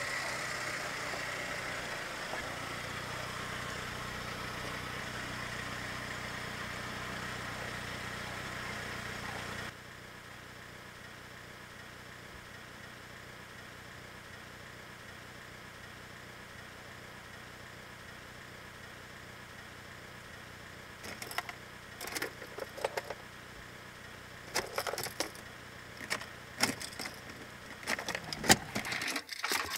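Car engine idling with a steady hum, inside the car, that cuts off abruptly about ten seconds in. Later comes irregular rustling and clicking as things are handled in the car, with a few sharp knocks near the end.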